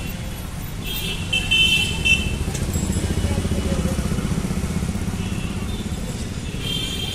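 Busy street traffic: a motorcycle engine running close by, loudest a few seconds in, with short high-pitched horn toots about a second in and again near the end.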